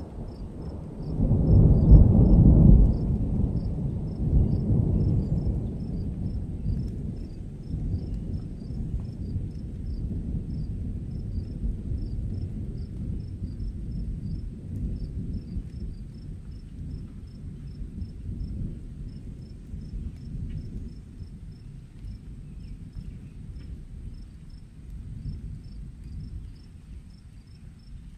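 Rolling thunder: a deep rumble that swells to its loudest about two seconds in, then slowly dies away. Crickets chirp faintly and steadily behind it.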